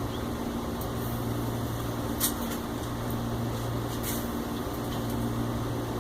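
Steady fan-like hum of background machinery, with a sharp click about two seconds in and a fainter click near four seconds from small hardware being handled during assembly.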